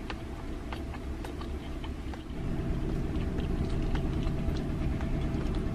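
A person chewing and pulling food apart with their fingers, small wet clicks here and there over a steady low hum that gets louder a little over two seconds in.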